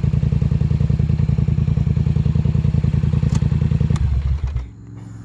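Polaris Sportsman 850 XP ATV engine idling with an even pulse, then switched off about four seconds in and running down to a stop. It is being shut off to clear an error code, a reset before restarting.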